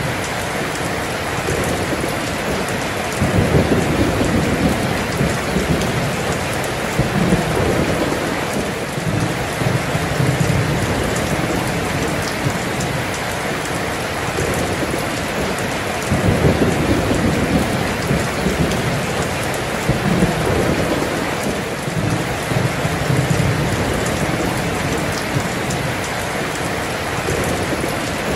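Heavy rain pouring down in a dense, steady hiss, with low thunder rolling in and swelling again and again every few seconds.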